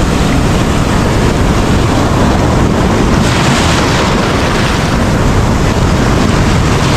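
Ocean surf washing and foaming around the wader, with heavy wind buffeting on the microphone; a steady, even rush of noise.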